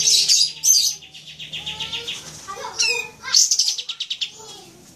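Kapas tembak singing: loud sharp chirps at the start, then a rapid trill of repeated notes, a falling whistle about three seconds in and another chattering burst just after.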